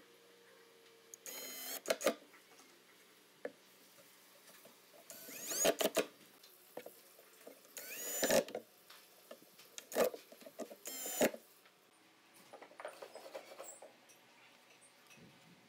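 Cordless drill-driver driving screws into the steel concealed cup hinges of a wooden cabinet door, in about five short bursts, each a rising whine as the motor spins up, with sharp clicks.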